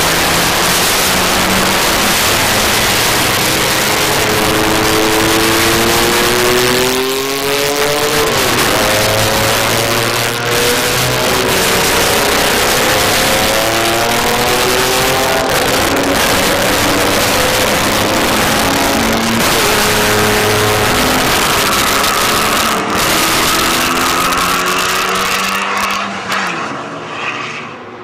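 Cars at speed on a race track, among them a Porsche 944 S2: engine notes rising in pitch under acceleration, dropping at each gear change and rising again, with cars passing by. The sound fades out near the end.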